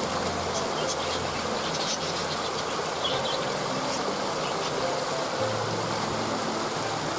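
Steady rush of a waterfall, with short high bird chirps through the first half and soft sustained low tones underneath.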